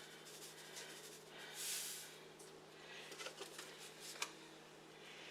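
Faint kitchen handling sounds of salt being measured out with a teaspoon and added to a mixing bowl: light rustling and small ticks, with a brief pouring hiss about two seconds in.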